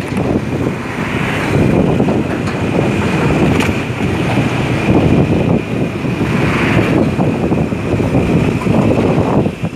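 Wind buffeting the microphone of a motorcycle riding at speed, with the bike's engine and road noise underneath.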